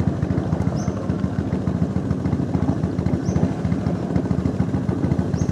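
Small boat motor running at a steady pace with a fast, even putter, pushing a wooden canoe forward. A short high chirp comes three times, about every two and a half seconds.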